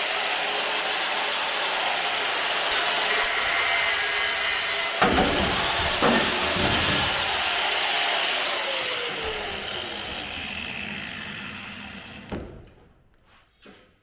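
Power cutting tool cutting into the metal of a Ford Capri suspension top, running steadily with a few low knocks partway through. Near the end it winds down with a falling pitch and stops, followed by a single clunk.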